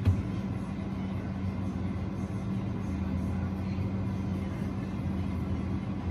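Steady low hum from a Whirlpool refrigerator while its ice maker module is jumpered into a test harvest cycle, the motor slowly turning the gear and lifting the wire feeler arm. A short knock comes right at the start.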